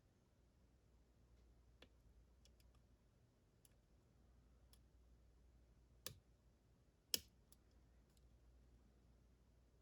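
Scattered light clicks from handling a U-Shin Showa NX lock and its tools, with two louder clicks about six and seven seconds in.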